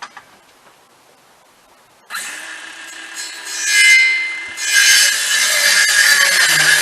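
Power saw cutting, starting suddenly about two seconds in and running loud to the end, with a steady whine under a harsh, hissing cut.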